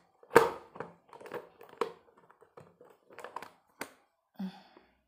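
Clear plastic lid of a plastic lunch box being handled and pressed onto the box: a series of hard plastic knocks and taps, the loudest about half a second in, as the lid is worked into place.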